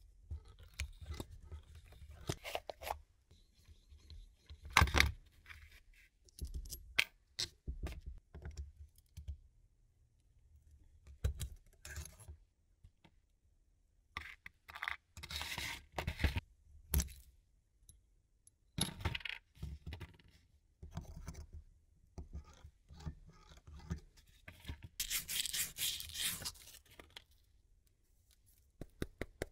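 Hand work on the clutch housing parts: irregular scraping and rubbing with scattered clicks and clinks of metal and tools, and a longer spell of scraping near the end.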